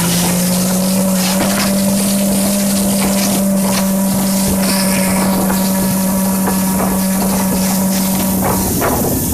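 Small motor vehicle engine running at steady high revs, with wind noise on the microphone. The pitch edges up slightly at the start, holds level, and falls near the end as the engine eases off.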